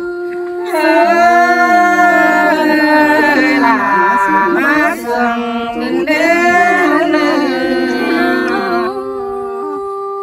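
A group of women and men singing a farewell song unaccompanied, in long drawn-out notes that glide up and down. One voice holds a note at the start, more voices join about a second in, and a single long held note closes the phrase near the end.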